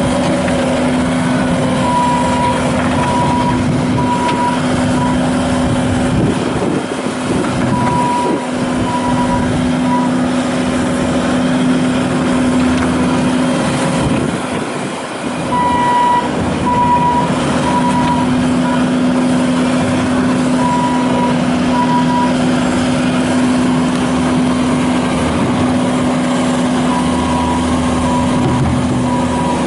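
Bobcat S750 skid steer loader's diesel engine running steadily. Runs of evenly spaced high beeps from a back-up alarm come on and off several times as the machine reverses.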